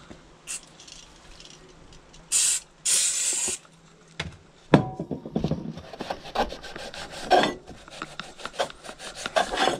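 Two short hisses of an aerosol degreaser spray, then a rag rubbing hard over a greasy moped engine part in quick back-and-forth strokes.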